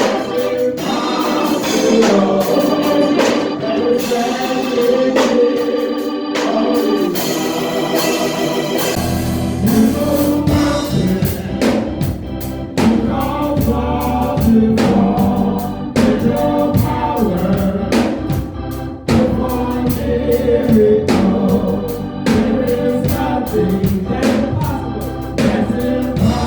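Gospel music with organ and voices singing, over a steady percussive beat; a heavier bass comes in about nine seconds in.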